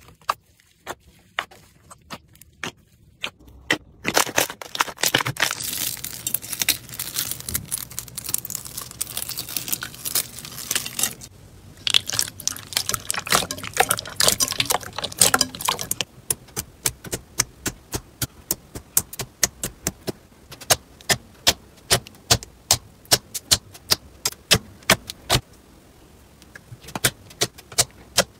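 Crunchy slime being squeezed and pressed by hand, crackling and popping: a few scattered pops at first, then several seconds of dense crackling, then a steady series of sharp pops, two or three a second.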